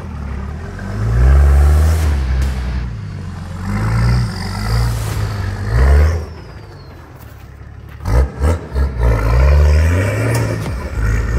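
Nissan Patrol 4WD's engine revving in repeated bursts as it crawls over boulders, its pitch rising and falling with each push, with a quick run of short throttle blips about eight seconds in.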